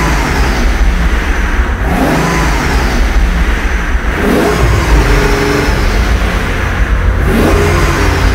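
Maybach 57S Xenatec coupe's 6.0-litre V12 revved through its exhaust in repeated blips, the pitch rising and falling about three times.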